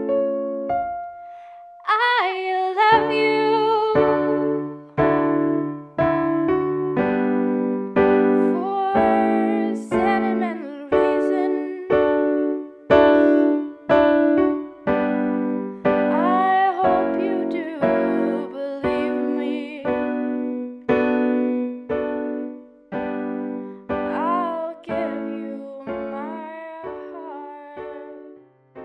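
Music: piano chords struck about once a second, each dying away, under a melody line that slides and wavers above them; it breaks off briefly about a second in and resumes.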